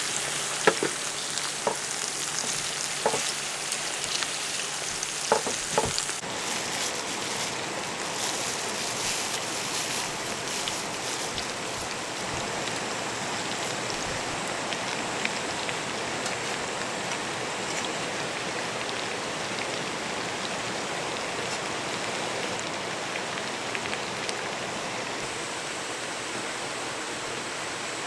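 Food sizzling in a pan, with a few sharp utensil clicks, for the first six seconds or so; then a steady rush of stream water.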